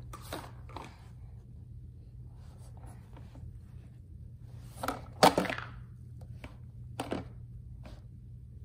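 A few sharp knocks and clatters, the loudest a quick cluster about five seconds in and another knock about two seconds later, over a low steady hum.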